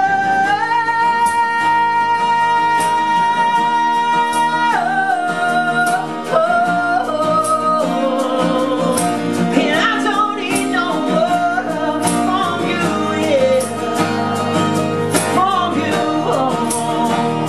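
Pop-rock band music: a singer holds one long high wordless note for about four seconds, then slides into wordless vocal runs, over guitar chords and a steady ticking beat.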